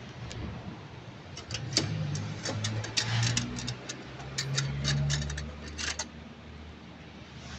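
Irregular metallic clicks and clinks of tools and parts being worked in a car's engine bay while a new drive belt is fitted, over a low hum.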